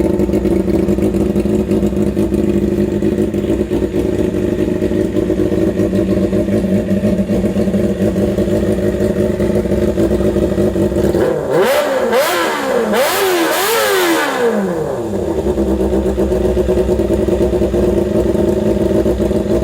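Motorcycle engine idling loudly through a muffler whose silencer insert has broken off and is missing, giving an unsilenced exhaust. About twelve seconds in, a quick series of several revs rises and falls in pitch before it drops back to idle.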